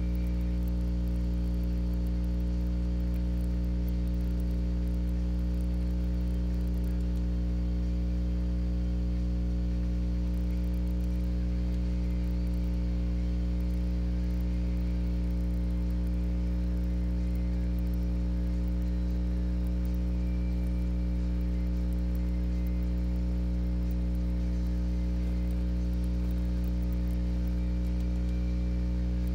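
Steady electrical mains hum and buzz, a stack of low tones that does not change.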